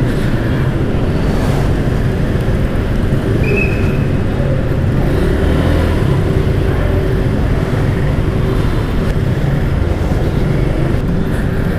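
Suzuki Gixxer motorcycle running steadily under way, with wind rushing over the microphone.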